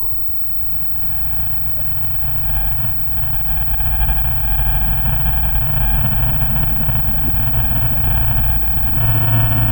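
Deep, low rumbling monster sound effect from horror sound design, swelling over the first few seconds and then holding loud, with faint eerie drawn-out tones layered above it.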